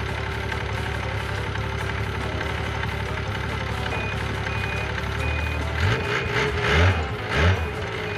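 Yamaha RS 1000 snowmobile's four-stroke three-cylinder engine idling, with its reverse beeper starting about four seconds in and beeping about twice a second. Near the end the engine is revved in three short bursts as the sled tries to back out, stuck where it has dug itself down in deep snow.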